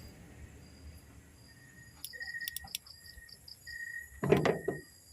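Birds and insects chirping in the background, with a few light clicks and a short clatter about four seconds in.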